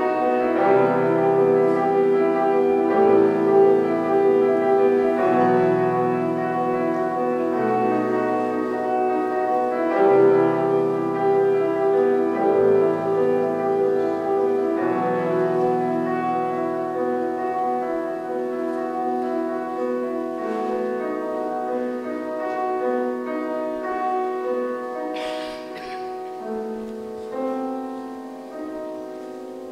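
Piano playing a slow, lyrical classical-style piece in sustained chords, the bass note changing every two or three seconds; it grows gradually quieter toward the end.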